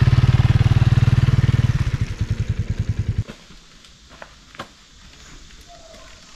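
Honda CRF300L single-cylinder dual-sport motorcycle engine running with a rapid, even beat as the bike rides past, fading as it pulls away and cutting off about three seconds in. A few faint clicks follow.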